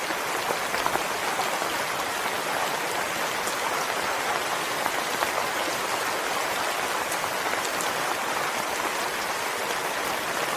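Soft rain falling steadily, a constant hiss with scattered individual drop ticks.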